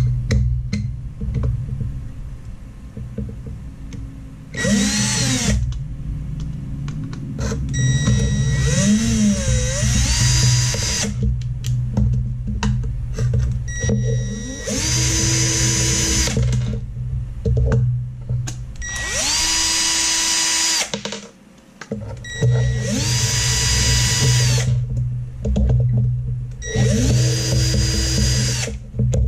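Cordless drill/driver backing screws out of an aluminium bracket in about six short runs. Each run is a motor whine that rises in pitch as it spins up, then holds steady for a second or two before stopping.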